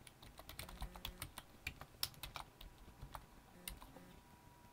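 Faint typing on a computer keyboard: a quick, irregular run of key clicks that thins out in the second half, as a username and password are entered into a login form.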